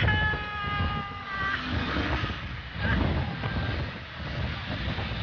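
Road traffic noise from a jammed road, with vehicle engines running. A steady pitched tone sounds for about the first second and a half, then stops.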